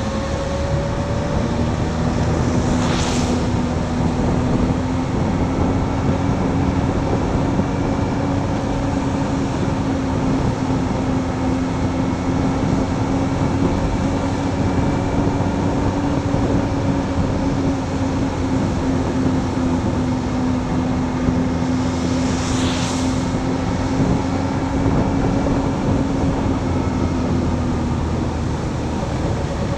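Motorcycle engine running at a steady cruise, its drone mixed with wind and tyre noise on a wet road. Two brief swells of hiss come through, about three seconds in and again after about twenty-two seconds.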